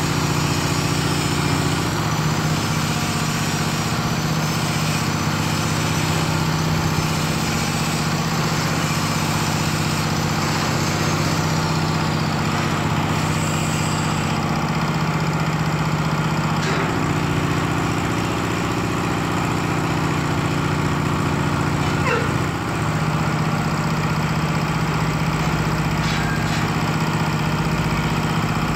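Small engine of a concrete lift hoist running steadily at an even speed, with a faint high whine that slides down and fades out about twelve seconds in.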